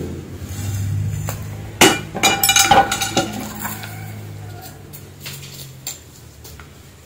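Kitchen cookware clinking and knocking as an omelet is set down on a wooden cutting board: a quick cluster of metal knocks and clinks, one ringing briefly, about two to three seconds in, then a few lighter ticks.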